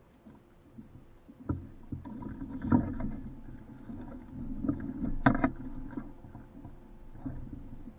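Water sloshing and slapping against a small boat's hull, with irregular knocks, the sharpest about five seconds in.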